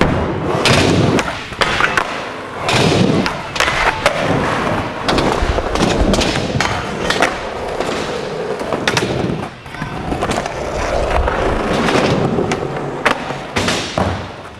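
Skateboard rolling on a smooth concrete floor, its wheels giving a steady rolling noise. Repeated sharp clacks come from the tail popping and the board landing during flatground tricks.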